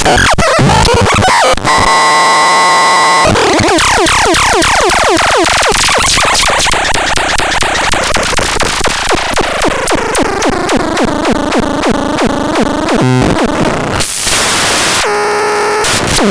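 MEGASTRON MGT 1 electronic sound generator making harsh, chaotic synthesized noise. Held tones give way to dense pitch sweeps, then a pulsing pattern of about three beats a second, with a short burst of hiss near the end.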